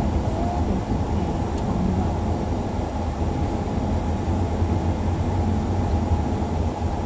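Steady road and engine rumble inside a moving car's cabin, low and even with no distinct events.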